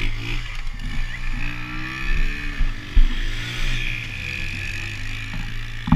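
Off-road engines: a steady idle close by, with an ATV revving up and easing off as it rides past about two seconds in, and a short thump near the middle.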